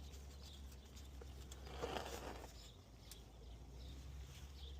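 Faint scraping and a few light ticks of hand work on transmission filter and gasket parts, with a brief rustling scrape about two seconds in, over a low steady hum.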